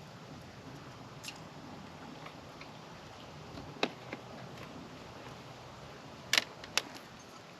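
A few scattered sharp clicks and taps, one about a second in, a louder one near the middle and a quick pair followed by one more near the end, over a low steady background.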